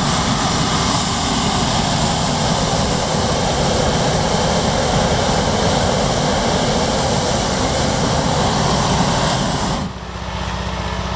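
Hot-air balloon propane burner firing in one long steady blast into the envelope during hot inflation. It cuts off about ten seconds in, leaving a quieter steady engine hum.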